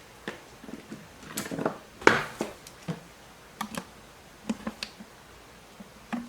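Scattered small clicks and taps, about eight of them with the loudest about two seconds in, from a small plastic USB card reader and a measuring tool being handled as the reader is measured.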